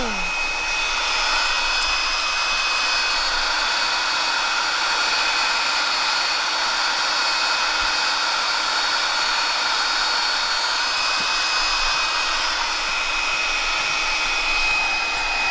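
Handheld electric air pump running steadily, blowing air into an inflatable camping mat through its valve: an even whirring with a thin high whine over it.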